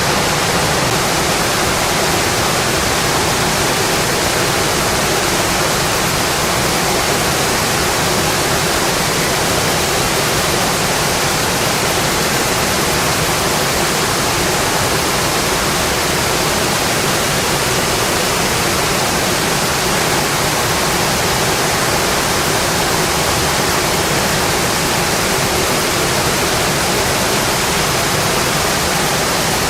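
Steady heavy rainfall, an even unbroken hiss with no single drops, thunder or other sounds standing out.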